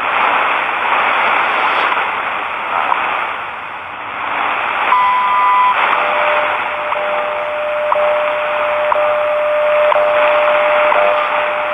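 WWV shortwave time signal on 10 MHz through a portable radio's small speaker: static hiss with a faint tick every second. About five seconds in comes a beep of under a second, the top-of-the-minute marker, then a steady lower tone sounds under the continuing second ticks.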